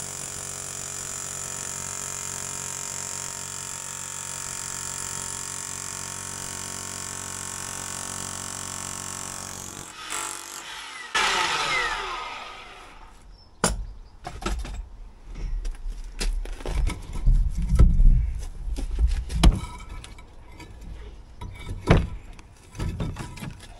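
Handheld demolition breaker hammering steadily into a brick pier for about ten seconds, then stopping. Loose bricks and rubble then clatter down, followed by irregular knocks and heavy thuds as bricks are pulled off and dropped.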